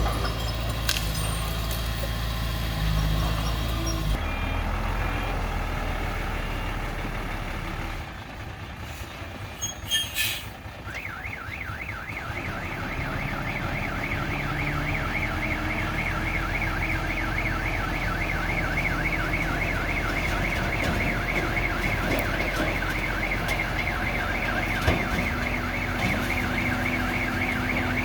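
Diesel engine of heavy earthmoving machinery running, with a few knocks about a third of the way in. After that a rapid, repeating warbling alarm starts and keeps going; it sounds like a reversing alarm.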